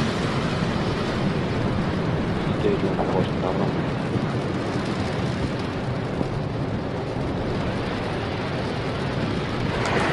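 Steady rushing noise of a SpaceX Falcon 9 rocket's nine Merlin first-stage engines during liftoff and climb, with faint voices under it.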